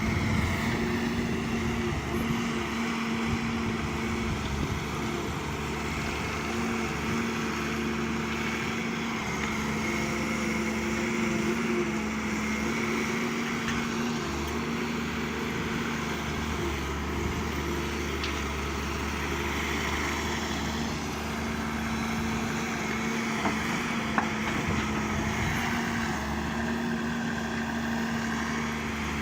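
Diesel engine of heavy earthmoving machinery running steadily with a constant hum, its low rumble growing heavier about halfway through; a couple of faint knocks about two-thirds of the way in.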